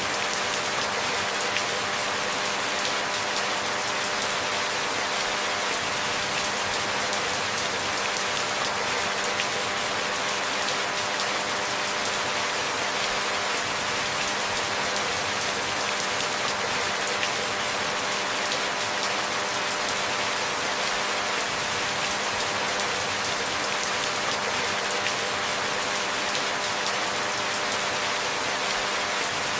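Steady rain, an even hiss of many fine drops with no change in strength. A faint steady hum lies underneath.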